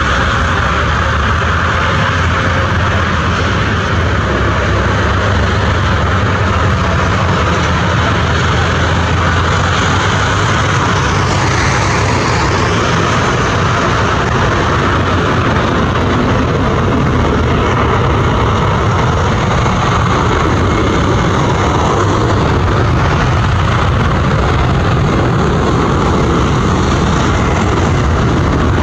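Boeing 767-300 freighter's twin General Electric CF6-80C2 turbofans at high thrust on the takeoff roll: a loud, steady jet roar and rumble. About twelve seconds in, a sweeping, phasing shift passes through the hiss as the aircraft goes by.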